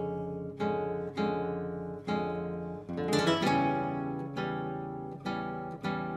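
Background music: acoustic guitar chords, each struck sharply and left to ring and fade before the next.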